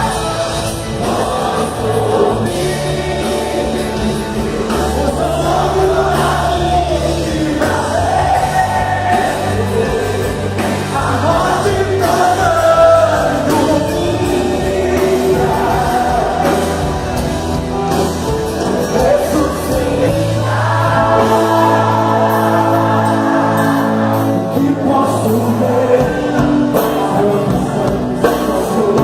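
Live gospel song with several voices singing together over a band, sustained bass notes underneath.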